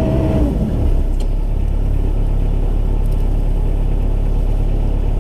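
Sherp's diesel engine droning heard from inside the cab while the vehicle drives over river ice. Its note steps down slightly about half a second in as the revs ease, then settles into a steady low rumble.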